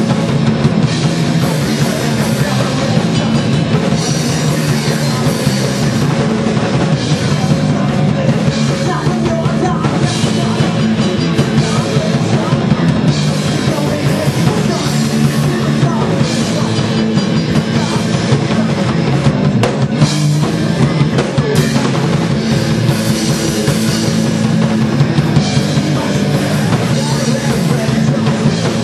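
A punk rock band playing live at full volume, driven by a drum kit, with the band sound dense and unbroken throughout.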